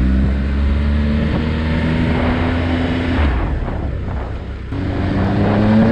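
Triumph motorcycle engine pulling under throttle with a slowly rising pitch, easing off about three seconds in and then pulling again with pitch climbing, over wind rush.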